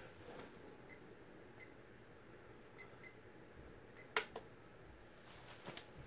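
SMC Laguna ceiling fan's small coil-reverse motor running steadily, a faint low whir. Several faint short high beeps sound over it, and a sharp click comes about four seconds in, with a smaller one just after.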